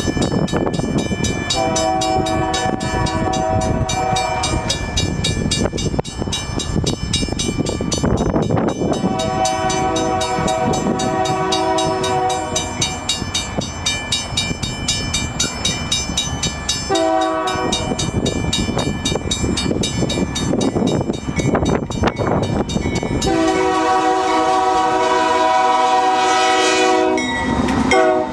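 A GE freight locomotive's multi-chime air horn sounds the grade-crossing signal: two long blasts, a short one, then a long one. Under it the train runs past with rumbling and clacking wheels on the rails.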